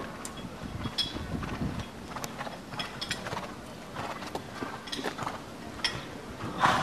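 Hooves of a show-jumping horse thudding and knocking at an irregular pace, with one louder thud near the end.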